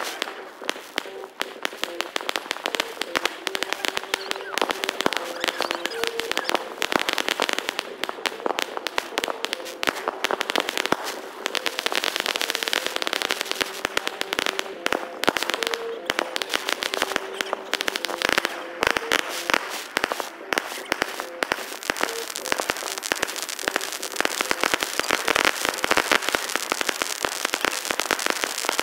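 Fireworks going off without a break: dense, rapid cracks and crackling pops one after another.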